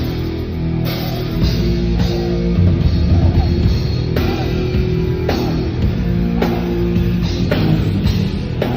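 A thrash metal band playing live: distorted electric guitar riffing over bass and drums, with cymbal crashes about once a second.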